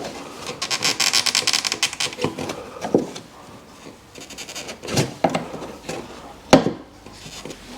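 A plastic fuel tank being wrestled out from under a car: fast rattling and scraping for a second or two, then several separate knocks and bumps as it hits the body and subframe, the loudest about six and a half seconds in.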